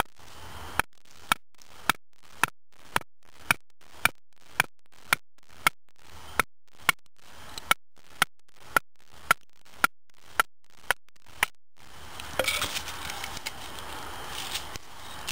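Wooden baton striking the spine of a Blind Horse Knives Pathfinder 1 knife, batoning the blade down through a short log section: about twenty sharp, evenly spaced knocks, roughly two a second. The knocks stop about twelve seconds in, followed by crackling and rustling as the split wood comes apart and is handled.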